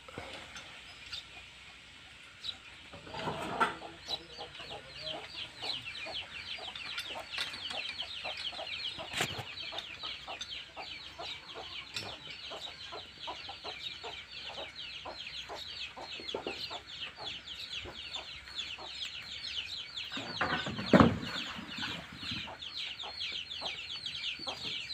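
Birds chirping rapidly and continuously, a quick run of short high falling calls starting a few seconds in, with a louder thud near the end.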